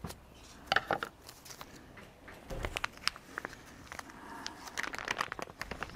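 A vacuum-packed plastic bag being opened and handled: crinkling plastic with scattered clicks and taps, and a dull knock about halfway through.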